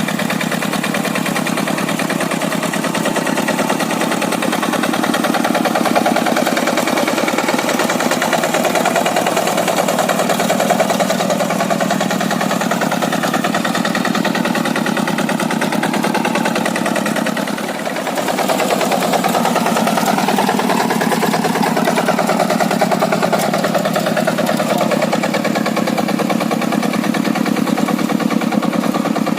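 Quick G100 hand tractor's Kubota single-cylinder diesel engine running steadily with a fast, even beat. It eases briefly about two-thirds of the way through, then picks up again.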